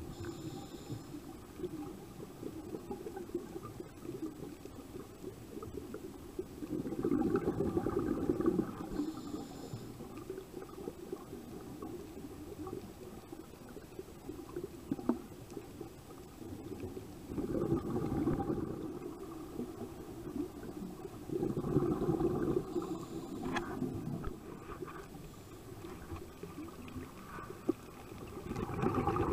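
Scuba diver's regulator breathing underwater: exhaled bubbles gurgle out in four bursts of a second or two each, irregularly spaced, over a low steady rumble of water on the housing.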